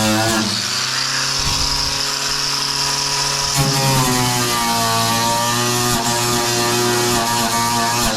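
Handheld power tool running steadily and loudly, its motor pitch dropping and rising as it bears on the work.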